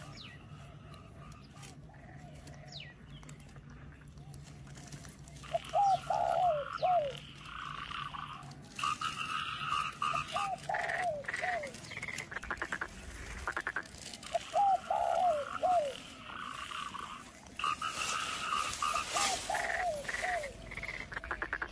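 Frogs croaking in short groups of calls that recur about every four to five seconds, starting about five seconds in; before that only a faint low hum.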